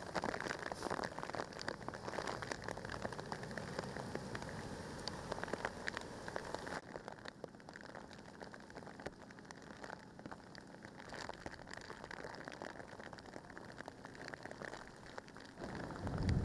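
Heavy rain pouring down and splashing on flooded pavement and standing water, a steady hiss thick with patters of drops, turning duller about seven seconds in. A low rumble rises near the end.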